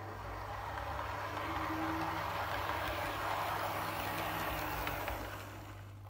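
Model Class 156 diesel multiple unit running along the track: its running noise swells over about a second, holds, then fades before the end. A steady low hum sounds underneath throughout.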